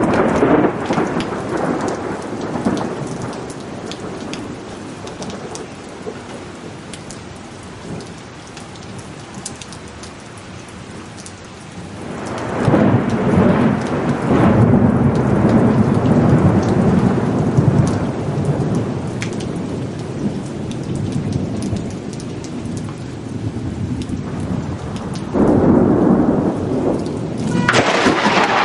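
Thunderstorm with steady heavy rain and thunder. One rumble at the start fades away over about ten seconds. A second long, loud rumble builds from about twelve seconds in, and more thunder breaks out near the end, the last clap starting suddenly and sharply.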